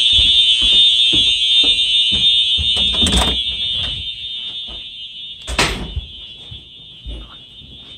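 Electronic fire alarm horn sounding a steady high tone, growing steadily fainter as footsteps move away from it. Two louder thumps come about 3 and 5.5 seconds in.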